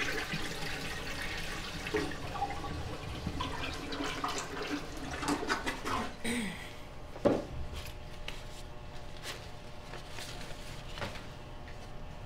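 Water running and splashing at a restroom sink, stopping about six seconds in, then a single sharp knock about a second later, followed by faint small clicks and handling.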